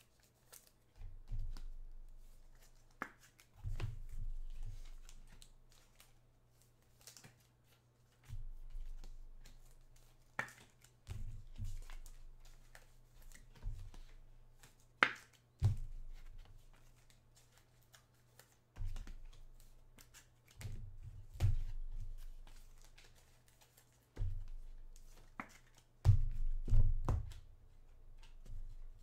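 Low, muffled thumps every few seconds, some with a sharp click and light rustling: hands handling trading cards and packs on a tabletop.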